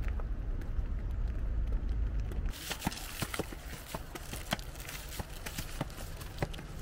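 Footsteps crunching, an irregular run of clicks and scuffs that starts about two and a half seconds in over a light hiss; before that, a low rumble.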